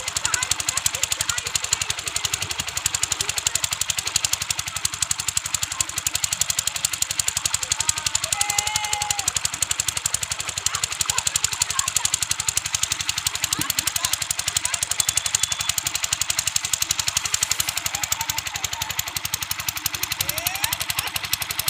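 An engine running steadily with a rapid, even knocking beat.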